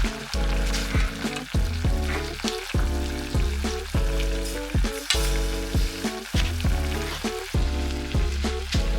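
Food sizzling and crackling as it fries in a pan, with a steady, rhythmic pitched backing running underneath.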